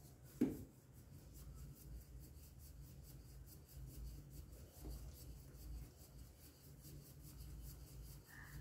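Wooden hand churn twirled back and forth between the palms in a steel pot of curd, making faint rubbing and churning sounds. A single sharp knock about half a second in is the loudest sound.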